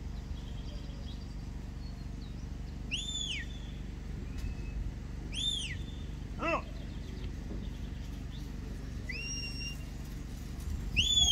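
Shepherd's whistle commands to a herding dog: four short whistles, most rising and falling in an arch, one held flatter, a few seconds apart. A brief lower call sounds about six and a half seconds in, over a steady low background noise.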